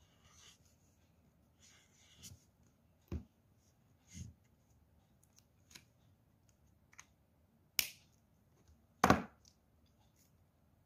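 Plastic water brush marker scratching briefly on paper, then scattered clicks and taps, the two loudest about eight and nine seconds in, as the marker is capped and set down with the others on the table.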